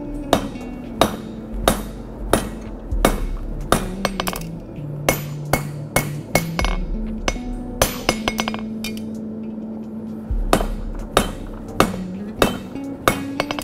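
Blacksmith's hand hammer striking a glowing hot bar on a steel anvil: a steady run of sharp, ringing blows, about one every half second or so, with a short pause about nine seconds in. Background music plays underneath.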